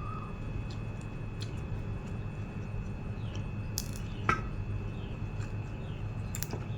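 Eating sounds over a steady low hum: a few light clicks and soft wet mouth sounds, with one sharper click a little past four seconds in.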